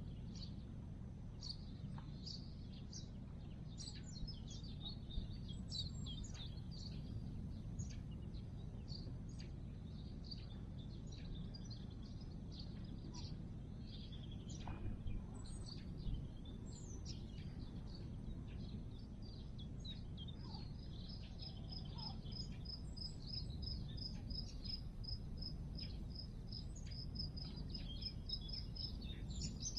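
Small birds singing and chirping in a spring chorus over a steady low background rumble. From about two-thirds of the way in, one bird repeats the same short high note over and over, about four times a second.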